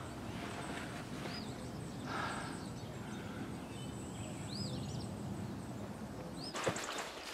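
Forest ambience: a steady low rumble with a few short, high bird chirps. Near the end, a burst of sharp crackling, like twigs snapping and undergrowth rustling underfoot.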